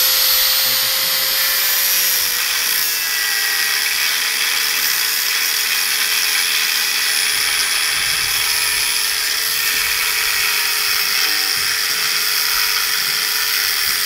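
Handheld angle grinder running at a steady high whine while its disc cuts into a metal hoe blade, throwing sparks; the pitch sags slightly as the disc is pressed into the metal.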